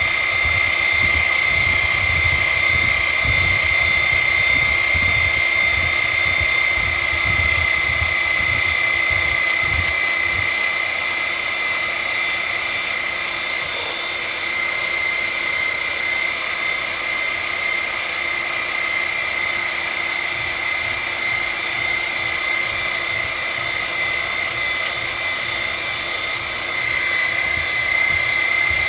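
A motor-driven machine running steadily with a constant high-pitched whine, with an uneven low rumble that fades out about ten seconds in.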